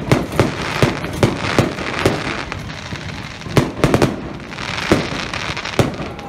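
Aerial firework shells bursting overhead: a rapid run of sharp bangs about twice a second for the first two seconds, then a few more widely spaced bangs.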